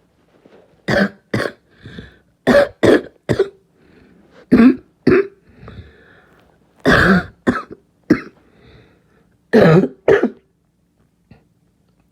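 Harsh barking cough, about a dozen coughs in five short bouts of two or three, with audible breaths drawn in between.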